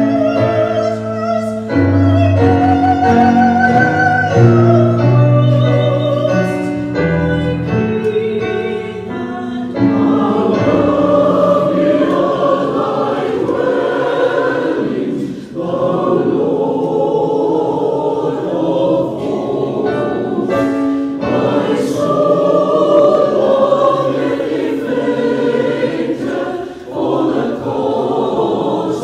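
Live choir singing a sacred song with piano accompaniment. For the first ten seconds a lighter, wavering vocal line sings over held low piano notes; from about ten seconds in, the full choir sings, dense and sustained.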